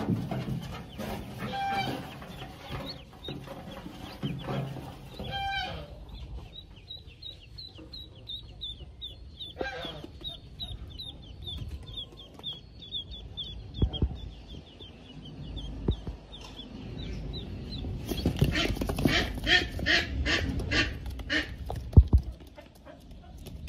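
Pekin ducklings peeping, a steady run of short high chirps several times a second. A few louder, lower fowl calls sound in the first seconds, and a burst of sharp knocks and rustles comes near the end.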